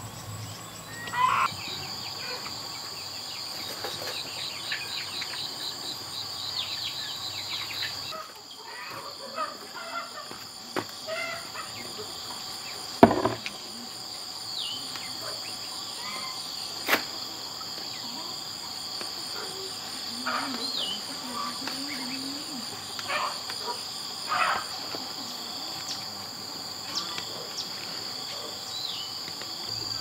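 Insects, crickets among them, trilling and pulsing steadily in a high-pitched chorus, with a few sharp knocks, the loudest about 13 seconds in.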